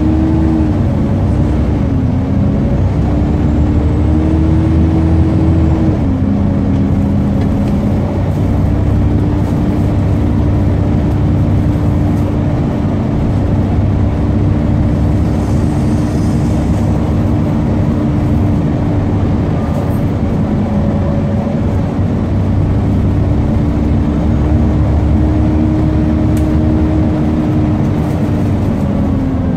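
Volvo B7TL double-decker bus on the move, heard inside from the upper deck: the Volvo D7C engine's cooling fans run with a steady droning tone, its pitch shifting a few times, over the engine's low rumble and road noise.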